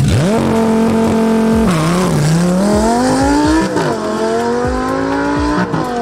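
Lamborghini Sesto Elemento's 5.2-litre V10 revving up and held at steady high revs, then launching about two seconds in and accelerating hard away. Its pitch climbs through the gears, with a quick drop at each of two upshifts near the middle and near the end.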